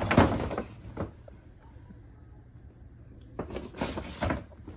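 Handling noise: two spells of rustling and knocking, one at the start and one about three and a half seconds in, with quiet between.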